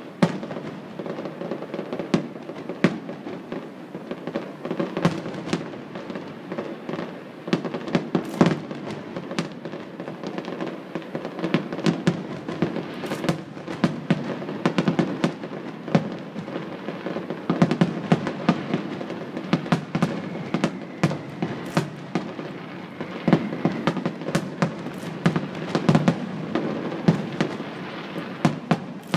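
Fireworks display: aerial shells bursting in an irregular run of sharp bangs, coming thick and fast at times.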